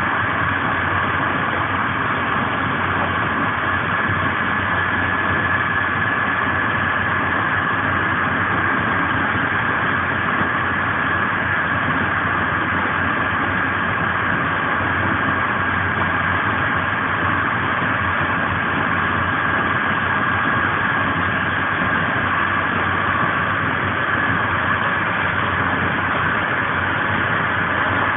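Passenger train coach running steadily on rails: a constant rush of wheel and track noise with a faint, steady whine, heard on board.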